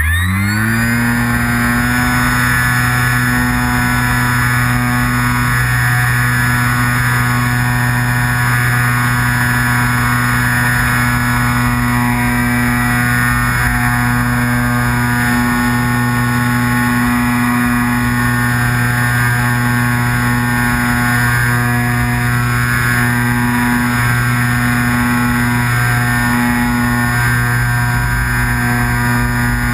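Parkzone Radian Pro RC glider's brushless electric motor and propeller, heard from a camera on board the plane. The motor finishes spinning up in the first second, then runs at a steady pitch under power, with wind rush on the microphone.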